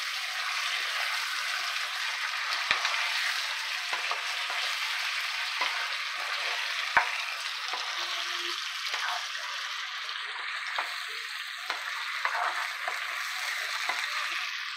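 Fish pieces sizzling in hot oil and spice paste in a nonstick pan while a wooden spatula stirs and turns them. Scattered clicks of the spatula against the pan, the sharpest two about 3 and 7 seconds in.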